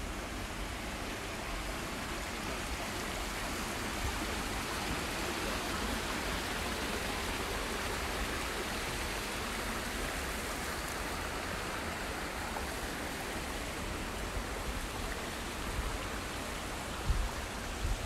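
Steady rushing noise like running water, swelling a little in the middle, over a low rumble, with a few low thumps near the end.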